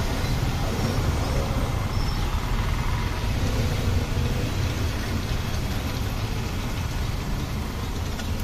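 Batter-coated pav deep-frying in a wide kadhai of hot oil: a steady sizzle, over a constant low rumble.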